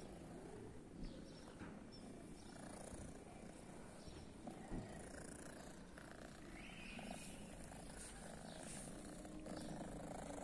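Tabby cat purring steadily while being stroked, close to the microphone, with a few soft knocks of handling.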